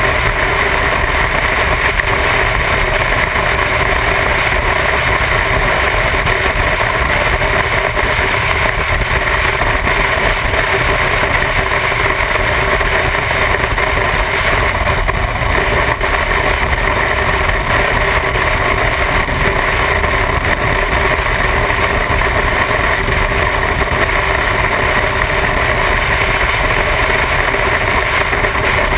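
Motorcycle cruising at steady highway speed, its engine running evenly under a constant rush of wind over the onboard microphone. The sound stays steady, with no gear changes or revving.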